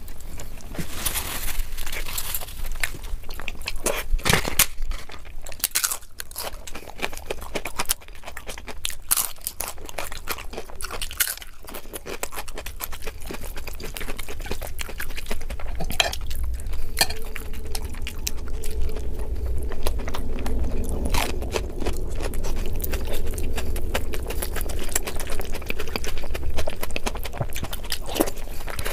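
Close-miked eating with the hand: wet chewing, lip smacks and irregular crunches of curry-soaked rice and chicken, with fingers squelching through rice on the plate. A low steady hum runs underneath.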